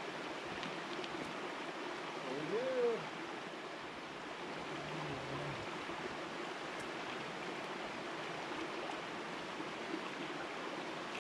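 Small mountain creek flowing steadily over a rocky bed, with a man's short grunt-like voice sound about two and a half seconds in.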